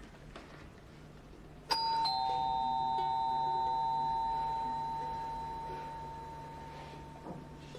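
Two-tone doorbell chime: a 'ding' about a second and a half in, then a lower 'dong' a moment later, both ringing on and slowly fading away.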